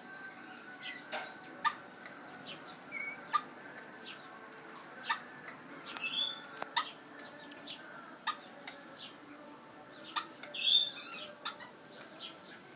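Fledgling lorikeet hiccupping: a short sharp click repeating about every second and a half to two seconds. Twice in between, another bird gives a brief harsh squawk.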